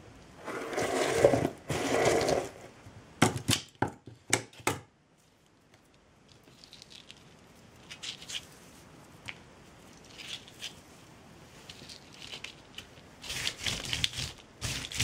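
Jute twine and crafting materials handled by hand: rustling and crinkling as the twine is wound and pressed onto a toy's leg form. A few sharp clicks come a few seconds in, then the rustling drops to faint scattered touches and grows louder again near the end.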